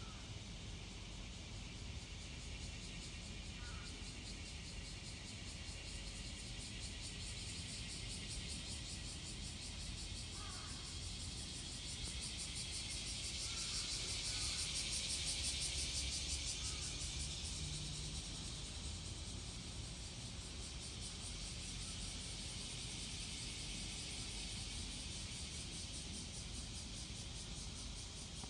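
Summer cicadas droning steadily in a high, fast-pulsing buzz that swells louder for a few seconds in the middle, with a few faint chirps.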